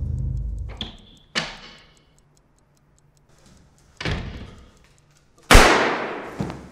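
A fast-ticking clock and a low drone fade out within the first second. Two sharp bangs follow, about a second and a half and four seconds in. Near the end comes the loudest sound, a single pistol shot with a long echoing tail.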